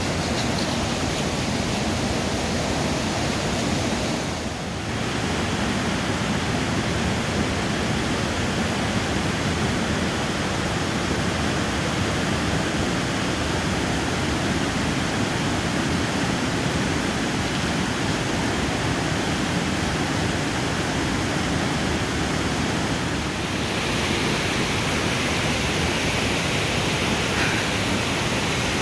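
River water rushing steadily, an even hiss with two brief dips about five seconds in and near the end.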